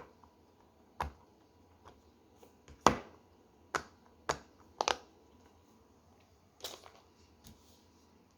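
Fidget toys being handled: about ten sharp clicks and taps at irregular intervals, the loudest about three seconds in.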